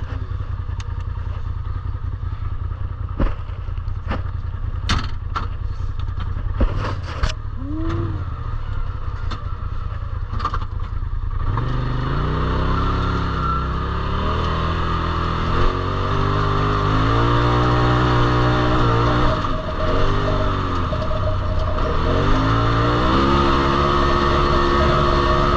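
Turbo Polaris RZR side-by-side driving off-road. For about the first eleven seconds there is a low engine rumble with scattered knocks and rattles. Then the engine revs up and its pitch rises and falls repeatedly as it accelerates and eases off.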